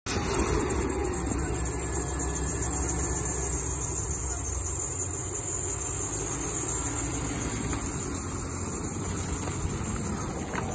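Chevrolet Silverado 1500 pickup's engine idling steadily, heard outdoors with a steady high hiss over it.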